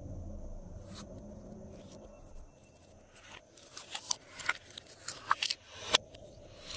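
Glossy slime being pressed and worked by hand, giving a string of short sticky clicks and pops that come thicker from about three seconds in, with one sharp pop near the end.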